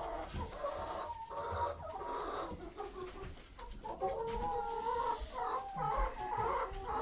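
A flock of chickens clucking, with many short overlapping calls that grow busier about halfway through.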